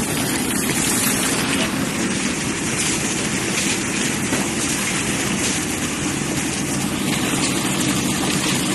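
Steady engine drone of the concrete machinery (mixer and pump) running during a concrete pour.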